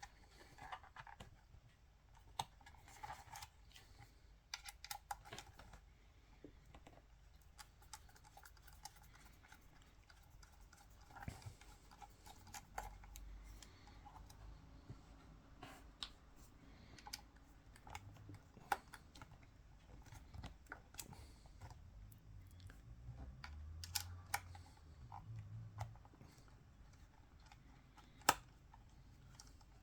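Faint, irregular small clicks and taps of a Canon EOS 5D DSLR body's parts being handled and worked apart during disassembly, with a few soft low knocks in the second half.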